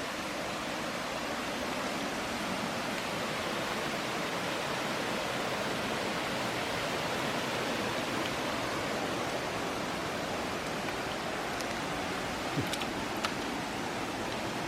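Steady rushing of falling water, a continuous even roar, with a couple of faint clicks near the end.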